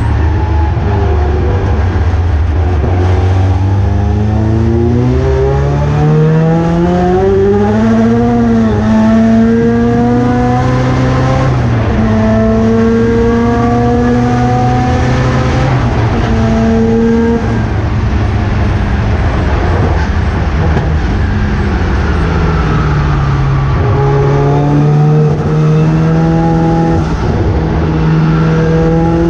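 Mazda RX-7 race car's rotary engine running hard on track. Its pitch climbs steadily over the first several seconds and holds high, drops away for a few seconds about two-thirds of the way in, then rises again near the end.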